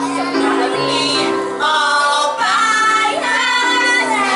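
Music: a song with a woman singing over sustained chords.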